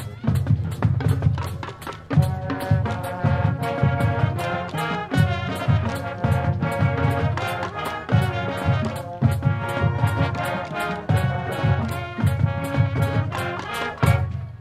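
Marching band playing: brass chords over a steady drum beat. Drums carry alone for the first couple of seconds, then the full brass section comes in.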